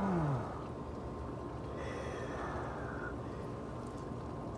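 A man gives a short falling groan from the cold of an ice bath, then breathes heavily, with a louder breath about two seconds in.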